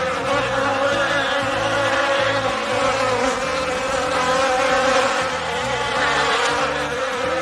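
Swarm of flying insects buzzing in a dense, steady drone that cuts off suddenly at the end.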